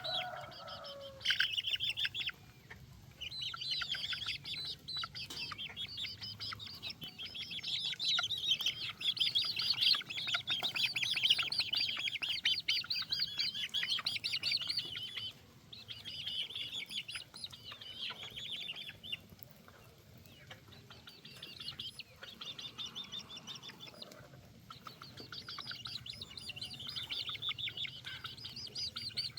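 Chicks peeping: many rapid, high chirps overlapping in stretches of a few seconds, with short lulls between.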